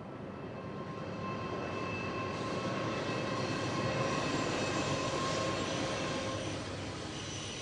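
Indian Pacific passenger train hauled by two NR class diesel-electric locomotives, working up the grade as it passes. The engine noise grows to a peak about halfway through and then eases as the carriages follow, with steady whining tones above the rumble.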